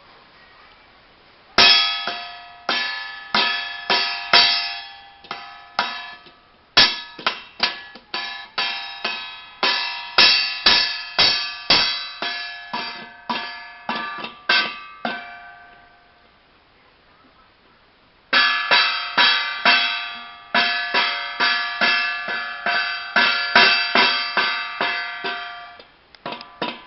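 A ringing metal object struck over and over in an uneven beat, about two strikes a second. Each strike rings on with several clear tones and fades. The strikes start about a second and a half in, stop for a few seconds past the middle, then start again.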